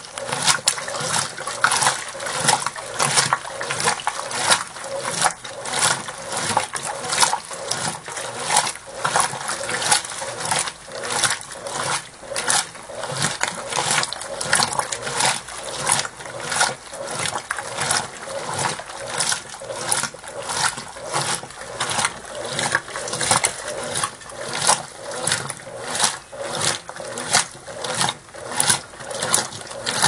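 Brastemp Ative! 11 kg top-load washing machine agitating a load in soapy water with the lid open: water and foam sloshing in a steady rhythm, about one and a half surges a second as the agitator swings back and forth.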